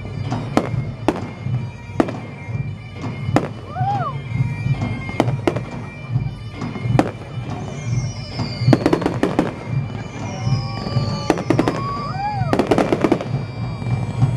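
Fireworks display: a rapid run of sharp bangs and crackling reports, with whistling shells sweeping down in pitch about eight and ten seconds in, and rising-then-falling whistles around four and twelve seconds in.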